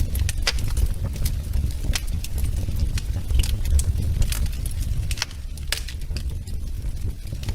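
Wood fire crackling in a fireplace: irregular sharp pops and snaps, a few a second, over a steady low rumble.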